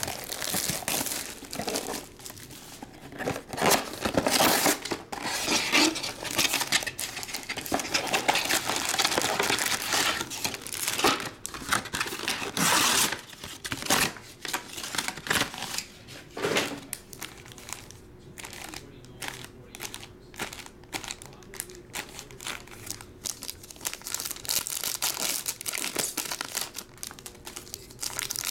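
Crinkling and tearing of plastic wrap and foil trading-card pack wrappers as a box of Panini Select packs is opened and the packs handled, with a few louder bursts.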